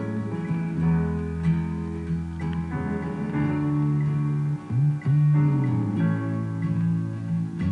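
Guitar music: plucked and strummed notes ringing on, with a low note that slides up and back down about five seconds in.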